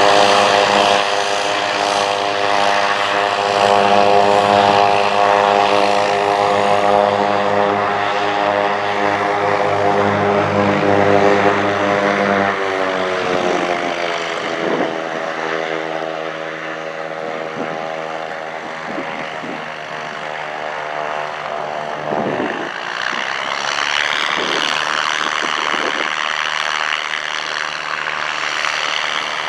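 Piper PA-28-181 Archer's four-cylinder Lycoming engine and propeller running hard and steady. About halfway through the engine note drops to a lower pitch and runs a little quieter.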